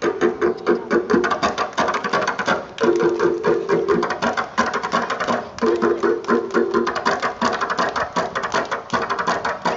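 Tari Indang dance music: a fast, busy frame-drum beat under a held melodic phrase that returns about every three seconds.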